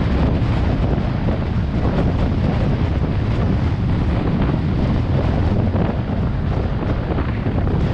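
Steady wind buffeting the microphone of a moving vehicle, over a low rumble of the vehicle and its tyres on the road.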